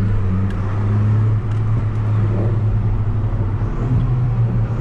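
Car engine drone heard from inside the cabin while driving: a steady low hum that holds its pitch.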